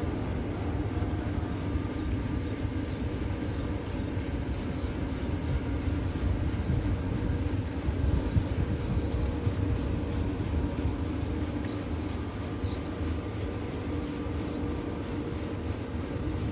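Sternwheel riverboat under way, a steady low rumble from its engine and turning paddlewheel with a few faint steady tones.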